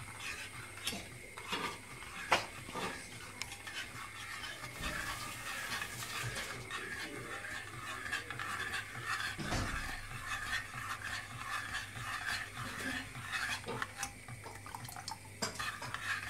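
Metal spoon stirring a cocoa sauce in a stainless steel pot, with irregular clinks and scrapes against the pot's sides and bottom over a faint steady hiss.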